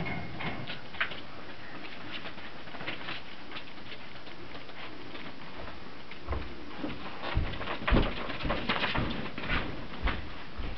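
Three-week-old Brittany puppies moving about their pen: scattered light patter and clicks of small paws, with heavier thumps and knocks in the second half.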